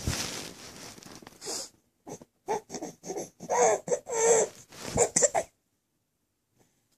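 Baby fake-crying: a string of short, whiny fussing cries, the baby fussing to be picked up and played with rather than in real distress. A burst of rustling comes first.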